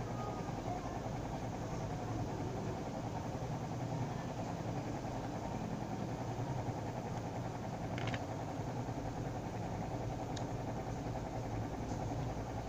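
A steady low machine hum, with a few faint light clicks about eight, ten and twelve seconds in as a thin metal pry tool works around the edge of a smartphone's back cover.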